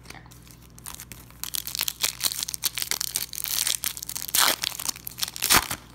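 A sticker pack wrapper being torn open and crinkled by hand: a dense run of sharp crackles that starts about a second in and is loudest near the end.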